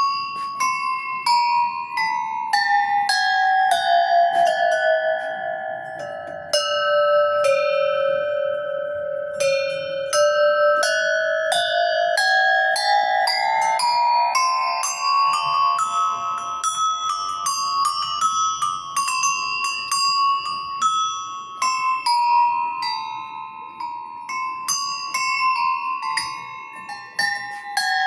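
Metal goat bells of graded sizes struck one after another, each ringing out. The pitch steps down from bell to bell, climbs again, then falls once more.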